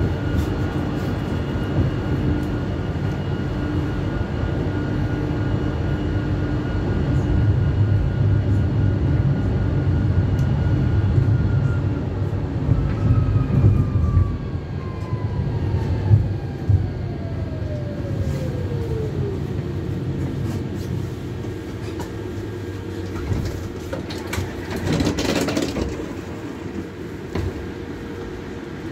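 Electric tram running, its traction motor whine steady at first and then falling steadily in pitch as the tram slows, with the wheel rumble fading away. A steady hum remains afterwards, and a short burst of noise comes near the end.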